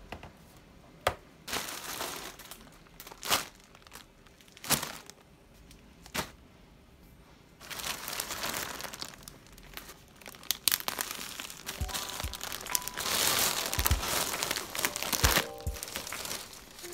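Several sharp knocks and taps on a desk, then from about eight seconds in a steady crinkling and rustling of plastic mailer bags and bubble wrap being handled.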